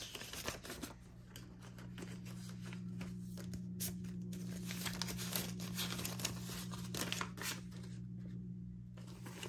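Paper banknotes rustling and crinkling as stacks of cash are handled and leafed through, in many short irregular strokes. A steady low hum runs underneath.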